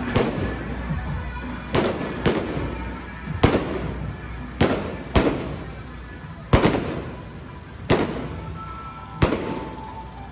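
Firework bangs, about nine single loud reports spaced irregularly one to one and a half seconds apart, each trailing off in an echo, over music from the passing float that fades away.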